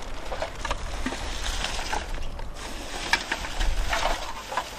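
Plastic bags and rubbish crinkling and rustling as they are rummaged through by hand, with scattered small clicks and crackles.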